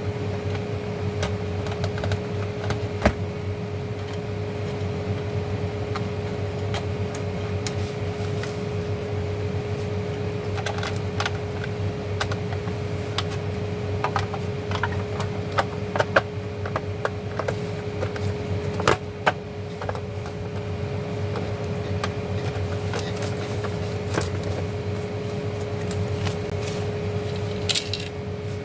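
Scattered small clicks and taps of hands working on the emergency light's parts, over a steady hum with a constant tone.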